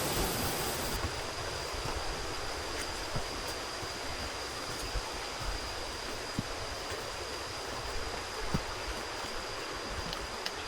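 Steady rush of a waterfall: an even, unbroken noise of falling water, with a thin steady high tone running through it.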